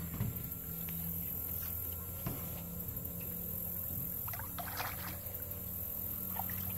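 Airboat engine running steadily at low speed, a low, even hum as the boat idles slowly along the channel. There is a brief faint noise about four and a half seconds in.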